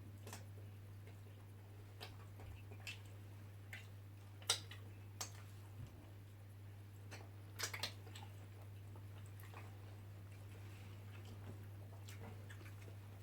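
Quiet eating sounds: scattered soft clicks and squishes of chewing and handling food, over a steady low hum.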